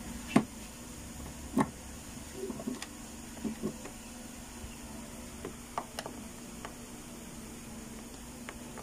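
Screwdriver and hands clicking and tapping on the plastic back cover of a Sony LED TV as its screws are taken out. Two sharp clicks come in the first two seconds, then lighter scattered ticks, over a steady low hum.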